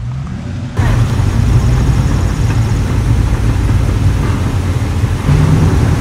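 Classic muscle-car engines rumbling at low speed as the cars roll past, a deep, steady exhaust note. It comes in suddenly and louder about a second in.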